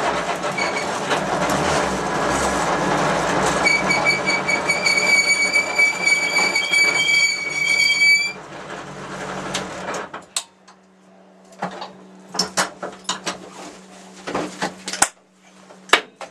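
A race car running loudly, with a steady high-pitched squeal for about four seconds in the middle. The car noise dies away about ten seconds in, leaving scattered sharp clicks and knocks over a low steady hum.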